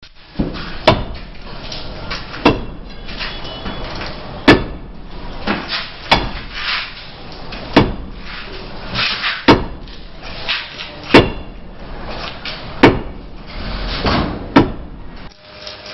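Hammer blows struck at a steady pace, about one every 1.7 seconds, nine in all, with lighter knocks and clatter between them, as in roof repair work.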